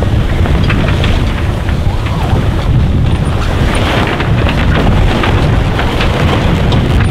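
Strong wind buffeting the microphone, with scattered crackles of loose sailcloth as a catamaran's mainsail is lowered.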